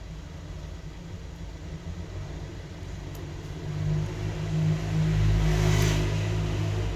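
A motor vehicle's engine rumbling, growing louder from about four seconds in and loudest just before the end.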